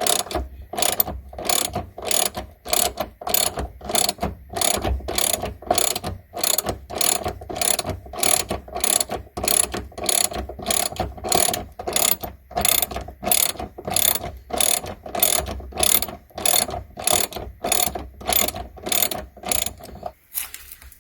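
Ratchet wrench driving a triple-square bit socket, clicking in quick, even back-and-forth strokes at about two a second as it unscrews a long M10 seat-belt/seat bolt that has just been broken loose; the clicking stops shortly before the end.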